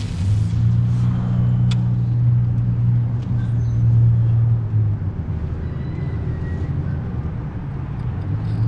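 A motor vehicle's engine running with a low, steady hum that swells at the start, holds for about four and a half seconds, then drops back before rising again near the end. A few light clicks sound over it.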